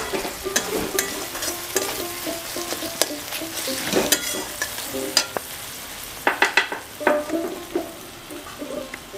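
A metal spatula stirs and scrapes a thick onion-tomato masala as it sizzles in mustard oil in a metal kadai, with irregular clicks and scrapes of the spatula against the pan. A burst of louder clicks comes about six to seven seconds in. This is the sound of the spice paste being fried down (koshano).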